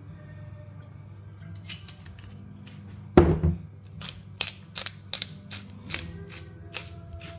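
Hand-twisted glass spice grinder being turned over a salad, crunching with a sharp click about three times a second. One heavy thump comes about three seconds in, just before the grinding starts.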